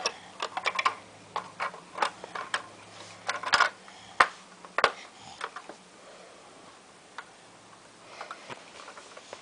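Plastic Lego pieces clicking and clattering as they are handled. There is a quick run of sharp clicks over the first five seconds, then a few scattered ones near the end, with a faint low hum that stops about five seconds in.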